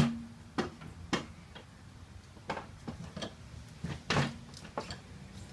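Irregular metallic knocks and clunks as the rear wheel of a Honda Goldwing GL1800, fitted with a wide car tire, is worked out of its tight space. The two loudest knocks, near the start and about four seconds in, each leave a short ringing tone.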